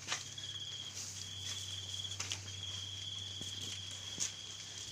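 A cricket trilling at a steady high pitch in long runs with short breaks, with a few sharp clicks, one at the start and one a little past halfway.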